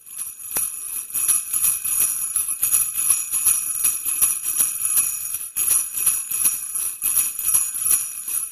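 Sleigh bells jingling in a quick, steady shaking rhythm, starting suddenly.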